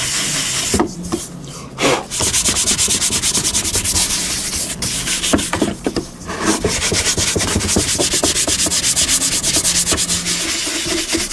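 Dried mud being rubbed off a steel WW1 German M1916 helmet shell by hand, in fast back-and-forth scrubbing strokes. The rubbing pauses briefly about a second in and again near the middle.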